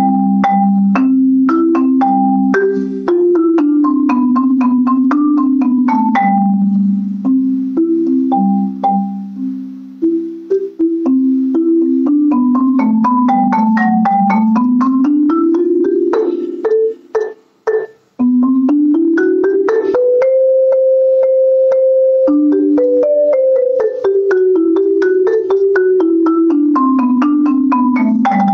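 Solo marimba played with yarn mallets: a melody of struck notes over low notes held with rolls. It stops briefly about seventeen seconds in, then picks up again with a long rolled note.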